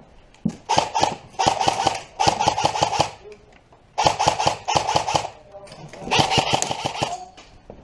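Airsoft electric rifle firing about six short full-auto bursts, each a rapid run of shots over the whine of the gearbox motor.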